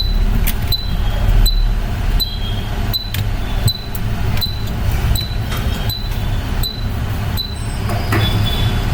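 Short high electronic beeps repeating evenly about every three-quarters of a second over a steady low hum from bench equipment.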